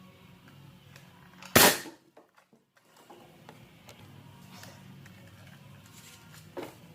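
A Nerf blaster firing one shot: a single sharp pop about one and a half seconds in, followed near the end by a fainter short knock.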